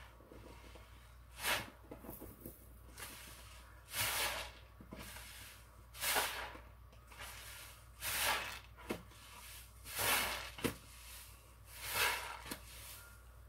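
A large soapy sponge squeezed and let go in a sink of sudsy water, each squeeze a wet squelch with hissing suds and running water, about every two seconds.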